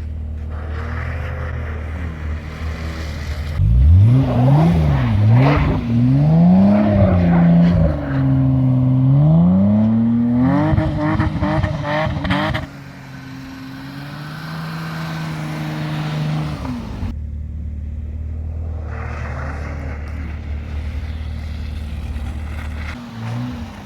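BMW E34 525i's M20B25 straight-six engine idling, then revved hard several times, its pitch rising and falling for about nine seconds. It then holds a steady speed for a few seconds, drops back to idle, and starts to rev again near the end.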